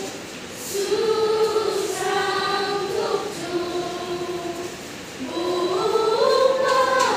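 Choir of girls and young women singing, held notes with short breaks between phrases; the last phrase climbs in pitch.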